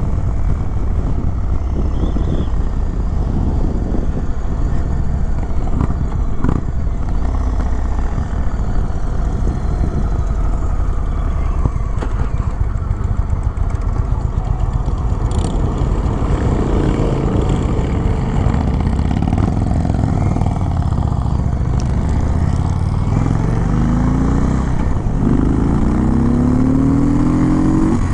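Indian Chief Springfield Dark Horse's 111-cubic-inch V-twin running under way, heard from the rider's seat with wind buffeting the microphone. In the last few seconds the engine note climbs in pitch several times as the bike accelerates through the gears.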